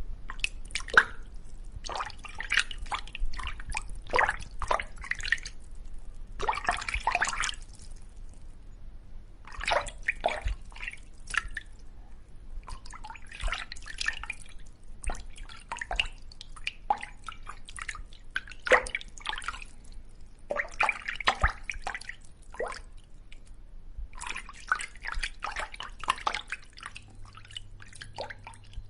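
Fish splashing in river water: irregular clusters of quick small splashes and drips, each lasting a second or a few, with short pauses between.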